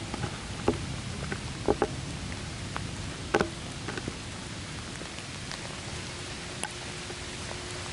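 Steady rain falling at night, with scattered sharp drops ticking on a nearby surface, more of them in the first half.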